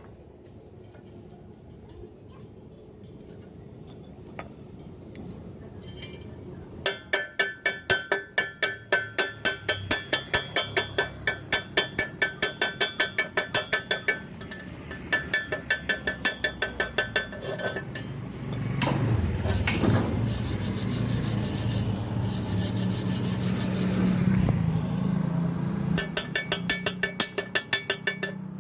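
Quick scraping strokes on metal, about four a second, each with a metallic ring. Around the middle they run together into a steady rub, then the separate strokes return near the end.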